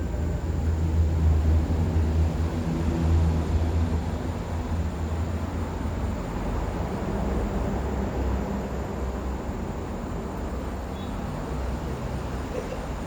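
Low engine rumble of passing motor vehicles, loudest in the first few seconds and then settling into a steadier, noisier rumble.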